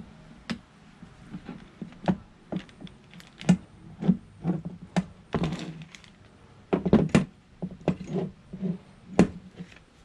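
Irregular small clicks, taps and knocks of a Subaru WRX clutch pedal assembly being handled as a small bushing is pinched and worked into the pedal's opening, with a couple of short scraping rubs near the middle.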